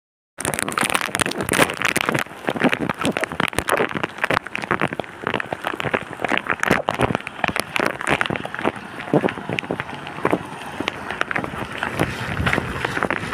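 Rain falling on a wet street, a dense crackling patter.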